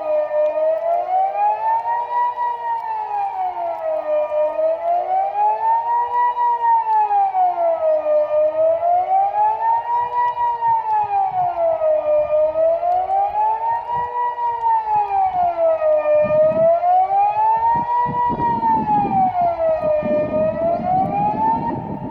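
Kockum Sonics Delta 6-AT electronic civil-defence siren sounding the Swiss "General Alarm" signal: a single tone rising and falling evenly about every four seconds, then cutting off at the very end as the alarm finishes. A low rumbling noise comes in over the last few seconds.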